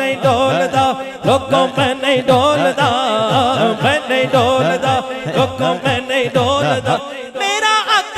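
Punjabi devotional naat being sung with chanting voices over a steady held drone and a deep rhythmic pulse about twice a second. The pulse drops out about a second before the end.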